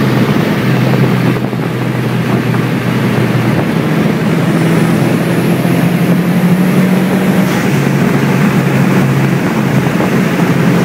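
Turbocharged car's engine running at highway speed under road and wind noise, heard from inside the cabin. The engine note dips briefly about a second and a half in and shifts pitch a couple of times after that.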